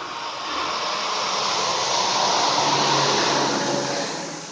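A vehicle passing on a wet road, its tyre hiss swelling to a peak about 3 seconds in and fading near the end, over a faint low engine hum.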